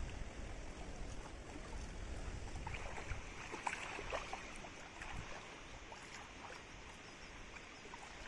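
Water splashing and lapping in the shallows at a rocky shore, with a cluster of small splashes about three to five seconds in. There is a low wind rumble on the microphone at the start that fades away.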